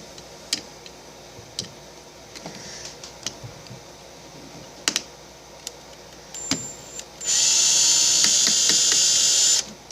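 A few light clicks and taps of a screwdriver bit on small plastic and metal parts, then about seven seconds in a small electric screwdriver runs with a steady whir for a couple of seconds, backing out a tiny screw.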